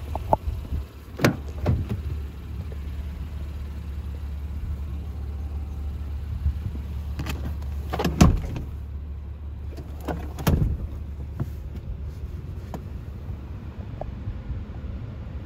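2019 Acura MDX door being opened and shut: a few clicks and knocks from the handle and latch, then a solid thump of the door closing about eight seconds in, the loudest sound, after which the outside hiss drops away inside the closed cabin. A steady low rumble runs underneath, with another knock about ten seconds in.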